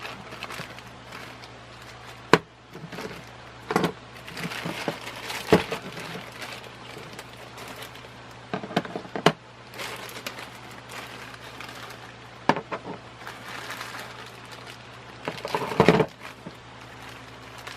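Packaging rustling and crinkling while ceiling fan parts are handled, with a few sharp knocks and clicks about two and a half, five and a half and twelve and a half seconds in. The loudest rustling comes near the end.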